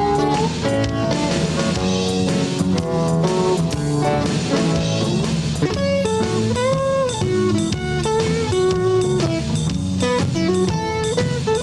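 Instrumental break of a song's backing tape: guitar playing over a steady drum-kit beat, with notes that bend in pitch about halfway through.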